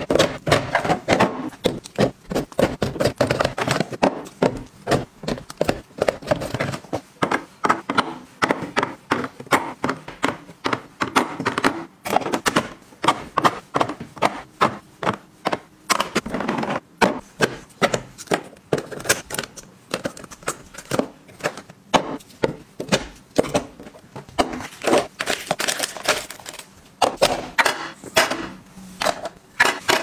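A steady run of light knocks and clacks as things are set into and moved about in clear plastic organizer boxes, including eggs placed one at a time into a plastic egg tray.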